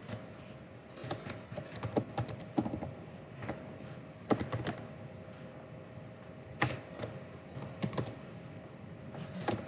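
Computer keyboard typing: irregular clusters of key clicks, with short pauses between bursts, over a faint steady hum.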